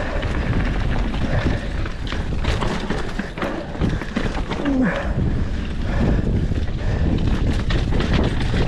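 Mountain bike riding down a dirt trail: steady rumble of tyres and wind on the microphone, with frequent rattling knocks from the bike over bumps.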